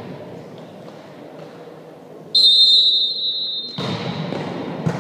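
Referee's whistle blown once in a sports hall, a single steady shrill blast about a second and a half long, signalling the serve in a volleyball match. Hall noise rises after it, and there is a sharp knock near the end.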